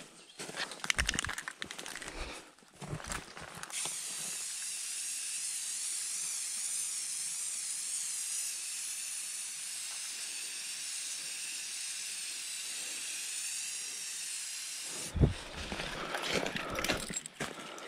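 Aerosol spray-paint can hissing in one long steady spray of about ten seconds, marking a tree. Before the spray there are footsteps crunching through dry leaves. It cuts off with a sharp knock, followed by more steps in the leaves.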